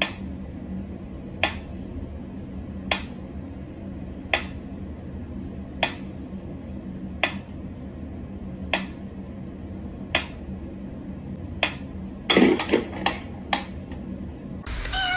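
Mechanical pendulum metronome ticking slowly and evenly, one sharp tick about every second and a half. About twelve and a half seconds in, a quick run of several knocks and a clatter breaks the rhythm.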